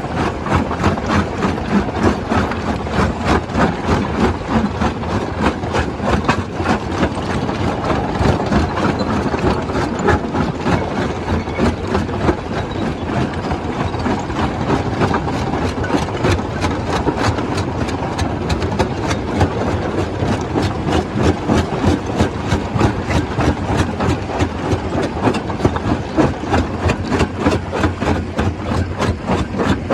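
Stone crusher machine running and crushing rock: a steady heavy mechanical clatter with a fast, even rhythm of knocks.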